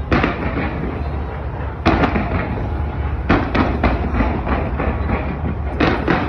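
Fireworks going off: a run of sharp bangs, the biggest at the very start, about two seconds in and again near the end, with a quick cluster of cracks between them, over a steady low rumble.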